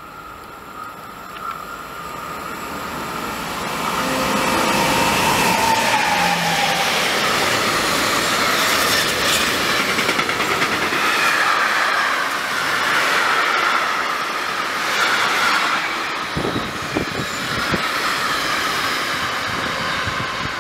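Electric locomotive hauling a freight train of tank wagons past at speed: it builds up and grows loud about four seconds in, with a tone that falls in pitch as the locomotive goes by, then the steady rolling of the tank wagons' wheels on the rails.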